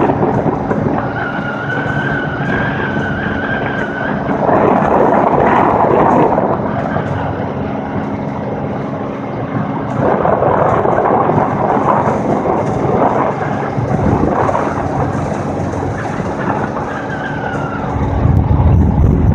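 Vehicle driving at highway speed: steady road and engine noise, swelling louder twice, about five and ten seconds in, with a thin wavering whine over it at times and a deeper rumble building near the end.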